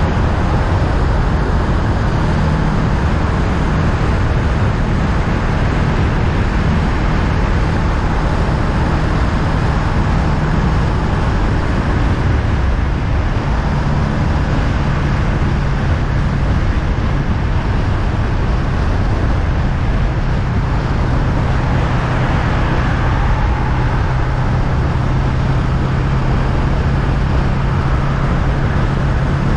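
Honda Rebel 500's parallel-twin engine under way at a steady cruise, with heavy road and wind noise. The engine hum steps down in pitch twice, about 13 seconds in and again about 20 seconds in.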